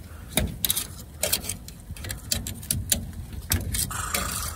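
Metal tongs clicking and clacking against the smoker's wire grate as racks of ribs are turned, in irregular sharp clicks over a steady low rumble.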